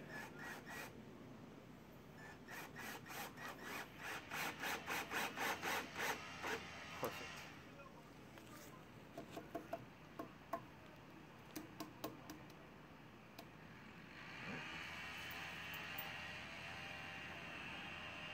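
Cordless drill driving a screw into a wooden floor timber: a run of rapid, regular clicks, about four or five a second, growing louder for several seconds as the screw pulls the timber tight. Then come a few scattered clicks and taps, and near the end a faint rubbing.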